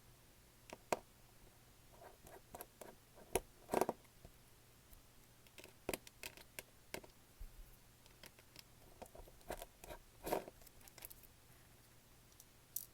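Irregular small clicks, taps and short scrapes of tools and small parts being handled on the opened tablet's internals during disassembly.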